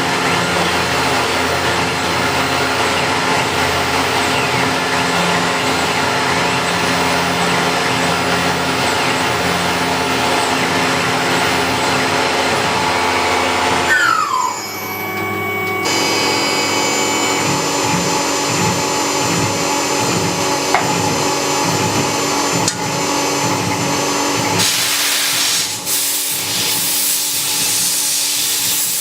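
Machine tools running: steady whirring and grinding noise with several held hum tones, the character changing abruptly about halfway through and again near the end.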